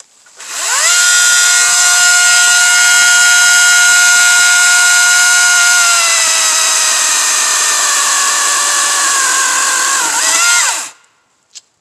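WEN 16-inch cordless electric chainsaw spinning up to a steady high whine. About six seconds in its pitch drops a little as the chain cuts into a log. Near the end it briefly speeds up, then winds down and stops, followed by a single short click.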